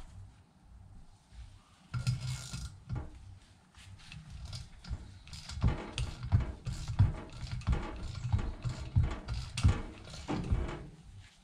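Ratchet wrench being swung back and forth on a stud remover, clicking as it backs a stud out of the old 2.0 TFSI cylinder head. There is a louder burst of noise about two seconds in, then from about halfway a steady run of ratchet strokes, two to three a second.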